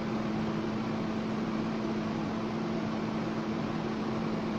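TIG welding arc on SUS 304 stainless steel pipe, a steady buzzing hum over an even hiss.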